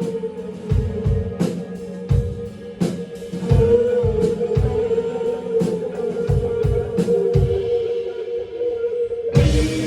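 Live rock band playing: a drum kit keeps a steady beat under guitar and a long held note that wavers slightly, with a loud cymbal-and-drum hit near the end.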